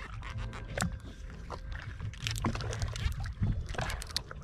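Small waves lapping and slapping irregularly against the side of a fishing boat, over a low steady rumble.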